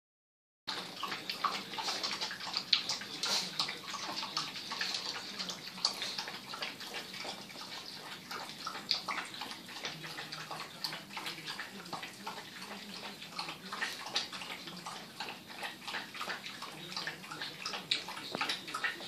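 Two dogs lapping water from one bowl: a quick, continuous run of wet splashing laps that starts just under a second in.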